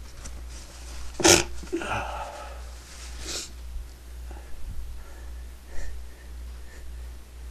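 A person sneezing: one sharp, loud sneeze about a second in, trailing off into a short voiced breath, then a weaker breathy burst about two seconds later.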